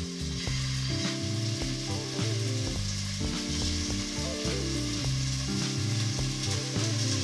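Pork slices sizzling steadily as they sear in a hot stainless steel pot while more pieces are laid in with tongs. Soft background music with held low notes runs underneath.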